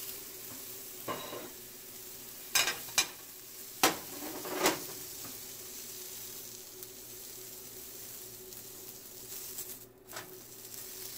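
Sesame-crusted tuna searing in a nonstick frying pan, sizzling steadily. A few sharp knocks and clatters in the first five seconds as the pieces are handled in the pan.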